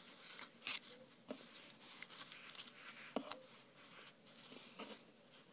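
Faint handling noise of cloth being folded around the cut-off plastic bottom of a water bottle: soft rustling with a few short clicks and taps.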